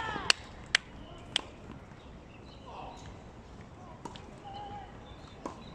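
A tennis ball knocking sharply three times in the first second and a half, then quieter, with faint short bird chirps and two softer knocks near the end.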